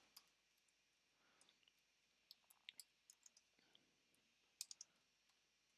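Faint, sparse keystrokes on a computer keyboard: a few scattered clicks, then a quick cluster of three near the end, over near silence.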